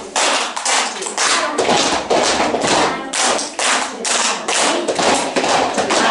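A group of children and their teacher clapping their hands together in a steady rhythm, with thumps of feet stomping between the claps.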